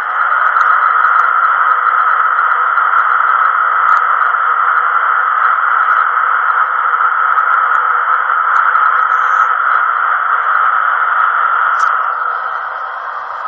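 Class 91 electric locomotive start-up sound played by the DCC sound decoder in a Hornby OO-gauge model, through its small onboard speaker: a loud, steady rushing hiss. It eases near the end.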